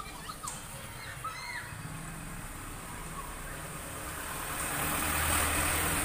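Front-loading washing machine starting to fill: a few seconds in, water begins to hiss into the detergent drawer through the inlet valve, over a low hum.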